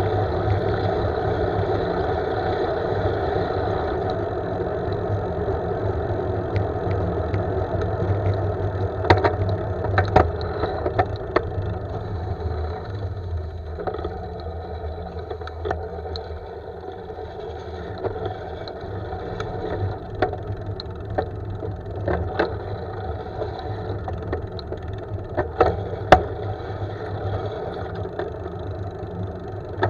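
Wind rushing over the microphone of a handlebar-mounted camera on a moving road bike, with tyre noise from rolling on rough asphalt. Scattered sharp clicks and knocks run through it, most of them in the second half, as the bike goes over bumps.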